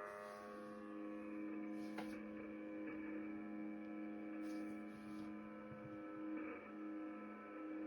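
Steady buzzing tone of a UVB-76-style buzzer transmission on 4635 kHz shortwave, heard through a Kenwood TS-850SAT receiver. The tone changes just at the start as a lower note comes in, and there is a sharp click about two seconds in.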